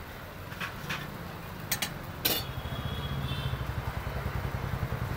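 An engine idling with a low, rapid chugging that grows louder about two seconds in, with a few sharp metal clicks of a spatula against the dosa griddle.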